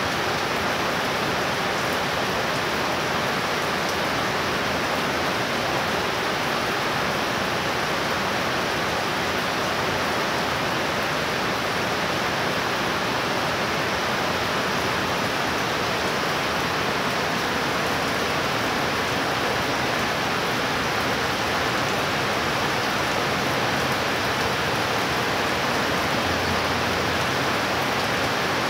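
Heavy rain falling in a steady, even hiss that does not change.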